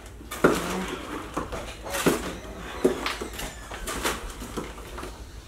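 Plastic zip-top freezer bags and chicken packaging rustling and crinkling as raw chicken breasts are handled into them, in irregular crackles with a few sharper ones.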